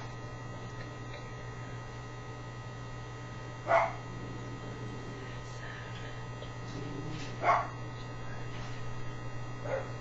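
Two short, loud animal calls about four seconds apart, with a fainter one near the end, over a steady electrical hum.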